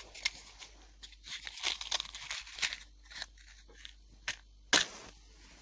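Irregular crackling and rustling handling noises while a waste-oil stove is being lit, with one sharp clack near the end.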